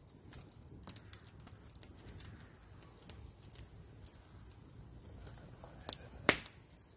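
Wood campfire crackling with scattered small pops, and ribs sizzling faintly in a wire grill basket held over the flames. A couple of sharper pops near the end, the loudest about six seconds in.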